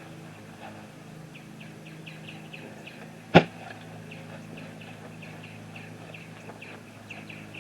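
A small bird chirping in a quick, even series of short calls. A single sharp knock cuts in a little before the middle.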